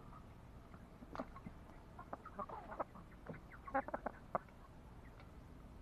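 Chickens clucking: a short cluck about a second in, then a quick run of clucks that stops after about four and a half seconds.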